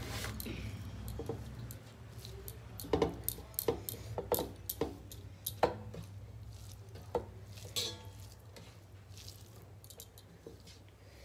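Eating rice and curry by hand from metal plates: fingers working the food against the plates, with a run of sharp metallic clinks from about three to eight seconds in as the plates and a small metal bowl are knocked.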